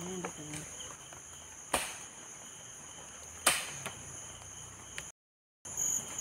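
Steady high-pitched insect chorus, with two sharp clicks or knocks, the second a little under two seconds after the first. The sound cuts out completely for about half a second near the end.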